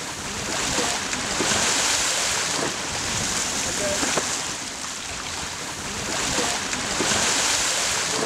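Water rushing and splashing along a sailing yacht's hull as it cuts through choppy water, with wind buffeting the microphone. The rush swells twice, about two seconds in and again near the end.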